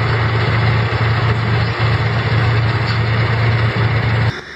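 Heavy vehicle engine running steadily: a loud low hum under a rushing noise, cutting off abruptly near the end.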